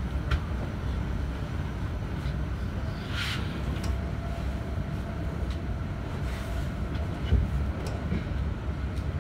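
Interior of a Z 20500 double-deck electric train running at speed: a steady low rumble with a few sharp clicks, and a brief hiss about three seconds in.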